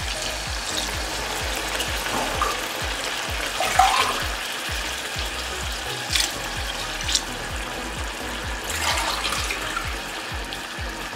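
Water poured in a stream from a steel tumbler into a hot karahi of chickpea masala, splashing into the pan. This is the water for cooking the rice in chana pulao.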